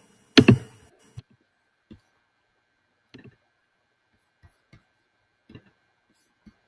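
A single short, sharp sound about half a second in, then faint, irregular clicks from computer use at a desk, a few seconds apart.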